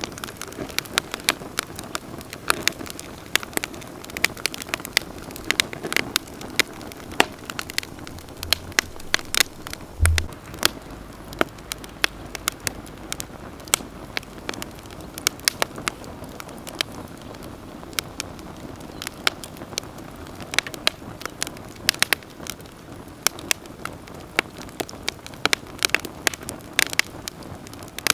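Wood campfire crackling, with frequent sharp, irregular pops over a steady low rush of burning. A brief low thud about ten seconds in.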